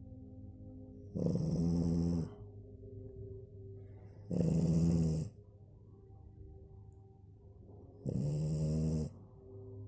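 French bulldog snoring: three loud snores, each about a second long and roughly three and a half seconds apart.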